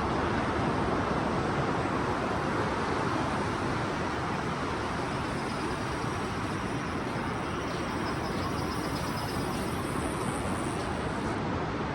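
Steady rushing noise of sea surf breaking on the beach.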